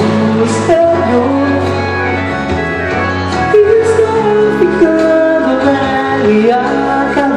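Pop song music with guitar and bass under a melodic lead line, in a passage between lyrics.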